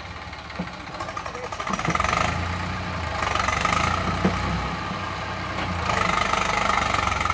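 Eicher 380 tractor's diesel engine running under heavy load, revving up about two seconds in and again near the end as it strains to pull a fully loaded trailer through deep sand.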